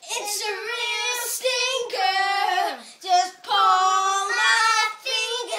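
A young girl singing unaccompanied in a high voice, in short phrases of held notes that often slide down at the end.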